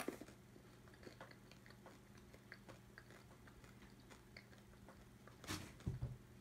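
A person chewing small chocolate candies, soft crunches and clicks scattered throughout. A brief louder noise comes about five and a half seconds in.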